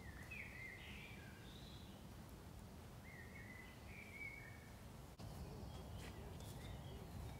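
Faint birdsong: a small songbird singing short wavering phrases, two clear ones in the first half and weaker notes later, over a low steady background rumble.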